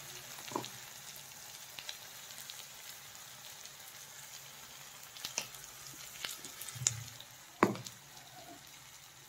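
Onion and ginger-garlic masala sizzling faintly in oil in a kadai, with a few taps and scrapes of a metal spatula against the pan, the loudest a little before the end.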